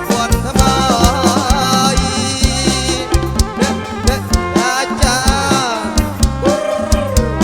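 Kantrum band music played live through a PA system: a steady drum beat under a lead melody with sliding, wavering notes.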